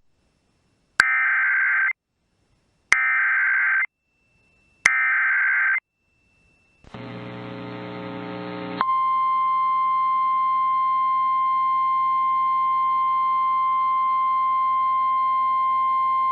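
Emergency Alert System SAME header: three one-second bursts of screeching digital data tones about two seconds apart. After about two seconds of radio hum and hiss, a steady single-pitch alert tone of the NOAA Weather Radio kind is held for about nine seconds, announcing the next emergency message.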